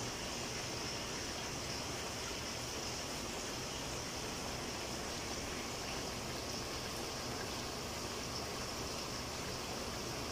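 Steady hiss of a large aluminium pot of chicken stew cooking on the stove.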